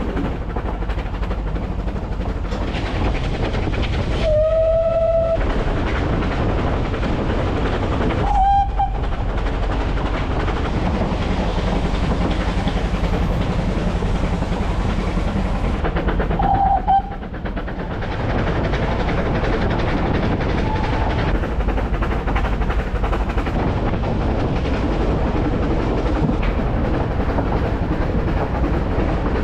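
Narrow gauge steam train running, heard from an open coach: a steady rumble and clatter of the wheels and coach. Three short whistle tones sound over it, the first and longest about four seconds in, then briefer ones near nine and seventeen seconds.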